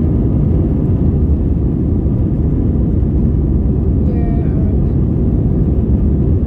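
Steady low rumble of an Airbus airliner's engines and rushing air, heard inside the passenger cabin during the climb after takeoff.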